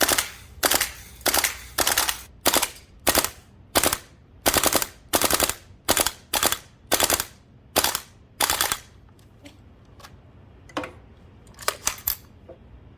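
GHK AK gas-blowback airsoft rifle firing, each shot a sharp crack of gas and the metal bolt cycling, in quick single shots and short bursts about one and a half a second. The firing stops after about nine seconds, followed by a few faint clicks and one last short burst near the end.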